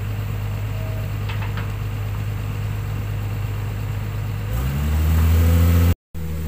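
Hydraulic excavator's diesel engine running steadily at low speed, then revving up about four and a half seconds in, rising in pitch and growing louder. The sound breaks off for a split second near the end.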